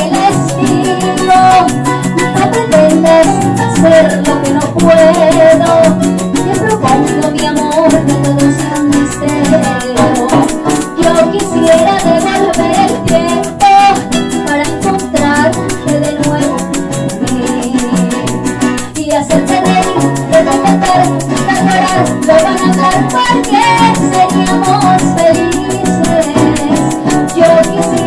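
Live Colombian llanera (joropo) music: llanera harp, cuatro and maracas playing continuously, with a woman singing into a microphone.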